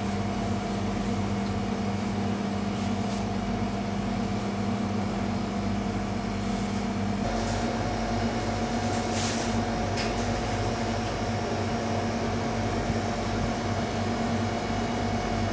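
Steady hum of bakery machinery with a few constant tones, whose mix shifts about seven seconds in. A couple of brief faint scrapes come about two seconds after that.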